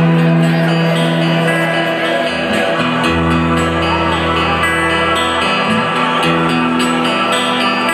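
Live rock band music: guitars playing held chords over a bass line, the chords changing every couple of seconds.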